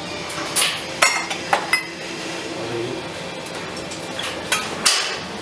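Mugs and crockery clinking as tea is made, a few sharp clinks in the first two seconds and two more near the end.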